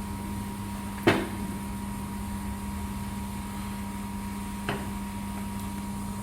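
Steady hum of a 2000 W laser welding machine standing by before a weld, with one sharp click about a second in and a fainter click near five seconds.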